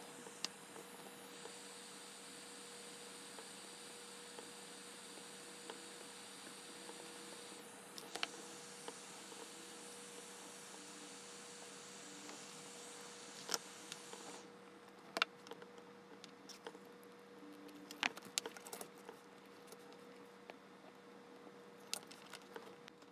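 Faint steady electrical hum with a high hiss that stops about fourteen seconds in. Scattered light clicks and taps come from a small circuit board and its wires being handled on a tabletop.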